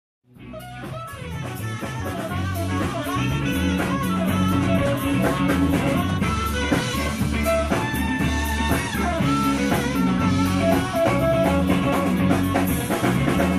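Instrumental intro of a rock song, guitar over a drum beat, fading in out of a brief silence.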